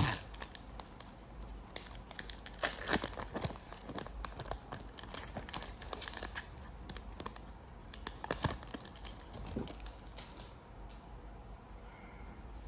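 Wrapper of a Bowman Chrome trading card pack being torn open and crinkled in the hands, a long run of sharp crackles and rustles that dies down about ten and a half seconds in.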